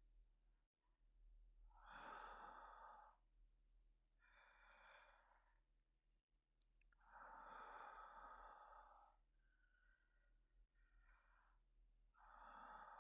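A man's slow, soft, deep breathing, long breaths a few seconds apart, like someone drifting off to sleep. A tiny click sounds about halfway through.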